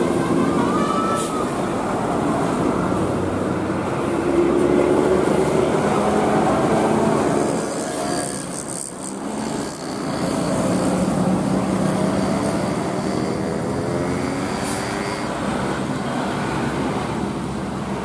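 Road traffic passing close by: engine and tyre noise of large vehicles going by, with the pitch sliding as they pass. The noise eases briefly about halfway through before another vehicle comes past.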